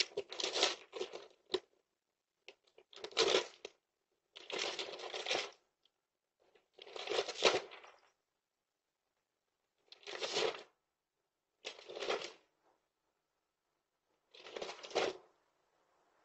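A cardboard delivery box being scraped and crinkled as a dog works at it, in about eight short, uneven bursts with silent gaps between.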